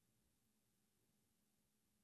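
Near silence: a gap in the narration with only a very faint low hum.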